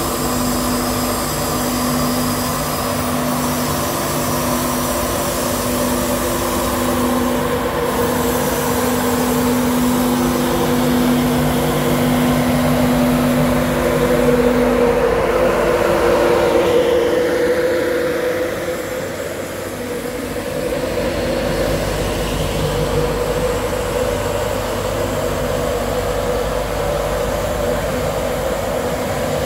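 LNER Class 91 electric locomotive standing with its on-board equipment running: a steady, loud hum made of several held tones. The strongest tone drops out about halfway through.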